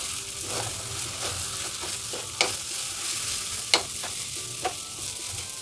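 Grated ginger sizzling as it fries in ghee in a kadhai, being stirred, with three sharp knocks of the stirring utensil against the pan in the second half.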